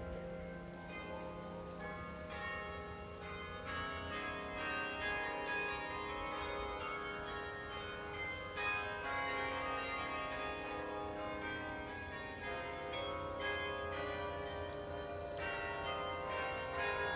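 Bok Tower carillon playing a melody: many tuned bells struck one after another, their notes ringing on and overlapping.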